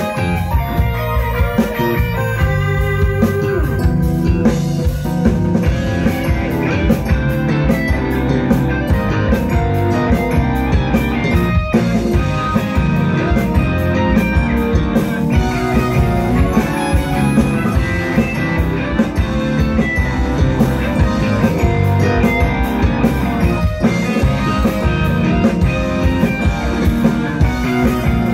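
Live rock band playing: electric guitars, bass and keyboard over a drum kit, steady and loud.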